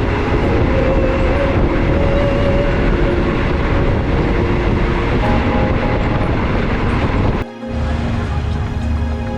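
Passenger train running on the rails: a steady rumble and rattle of the carriage. About seven and a half seconds in, it cuts off abruptly and music takes over.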